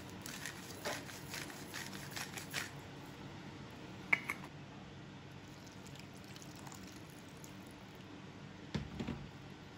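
Hand-twisted pepper grinder clicking in a quick run of strokes for the first few seconds. A single sharp knock comes about four seconds in. Near the end there is a short splash of water poured into a glass bowl.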